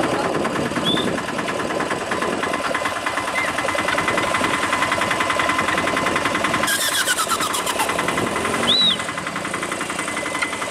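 Auto-rickshaw's small engine running with a fast, even chugging, getting louder and rougher for a couple of seconds past the middle.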